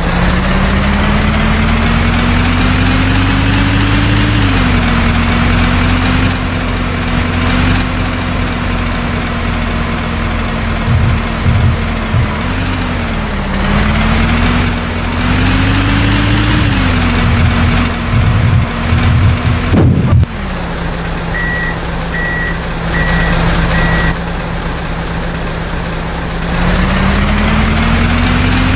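Heavy diesel engine running, its speed rising and falling under work, with knocks and a sharp bang about two-thirds of the way in. Shortly after, a reversing alarm sounds four beeps about a second apart.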